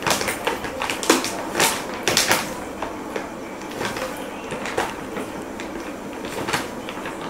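Shih tzu puppies scrabbling and tumbling in play, their paws and claws scuffing and clicking on a hard floor and fleece bedding: irregular sharp clicks and scuffs, thickest in the first half.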